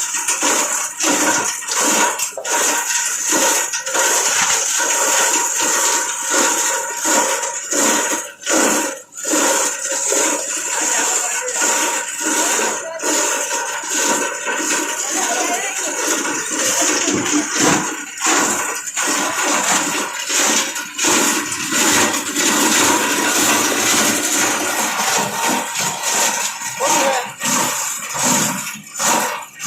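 Plastic scrap grinder running under load, its cutting blades chewing plastic scrap into flakes: a continuous loud, hissing rush peppered with rapid, irregular cracks and crunches.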